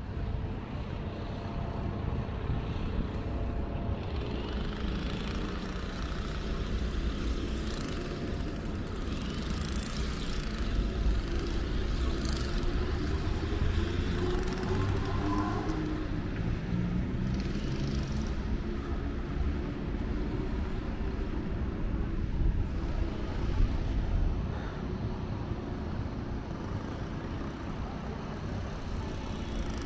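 City street ambience of road traffic: a steady low rumble of passing cars. About halfway through, one vehicle's engine rises and falls in pitch.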